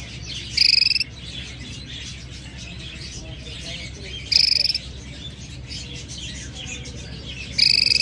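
Canary singing: three short, loud, rapidly pulsed trills of about half a second each, roughly three and a half seconds apart, over faint continuous twittering.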